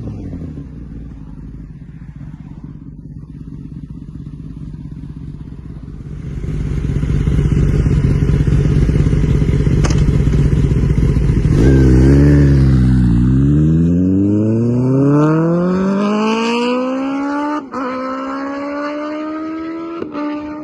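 2021 Kawasaki Ninja ZX-10R's inline-four through an SC-Project exhaust, heard from the roadside. The engine drone grows louder as the bike approaches, then passes about twelve seconds in. It accelerates away with the revs climbing steadily, shifting up about three-quarters of the way through and again near the end.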